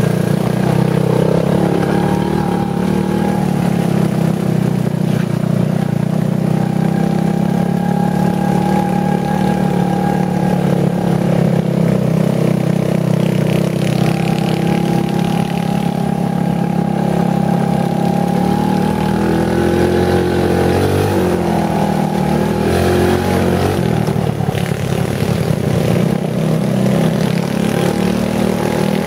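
Off-road vehicle engine running steadily while driving along a trail, its pitch dropping and then climbing again about two-thirds of the way through as the throttle is eased and reopened.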